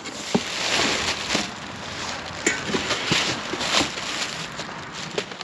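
Packaging being rustled and pulled apart while an exhaust muffler is unboxed, a steady crinkling with several sharp clicks and knocks.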